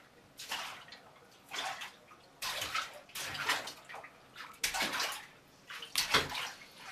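A toddler splashing bath water in a tub with his hands, in irregular splashes about a second apart, the loudest near the end.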